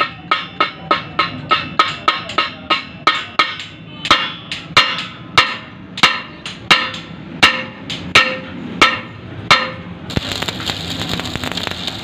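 Hammer striking a freshly welded steel plate with sharp metallic rings, about three blows a second at first, then slower, heavier blows about two a second. About ten seconds in the hammering stops and an electric arc welder starts: a steady crackling hiss.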